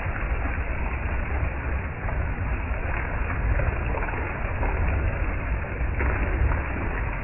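Storm wind gusting over the microphone: a low buffeting rumble under a steady rushing noise.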